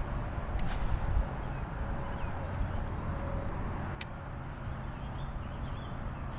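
Wind buffeting the microphone as a steady low rumble, with a single sharp click about four seconds in.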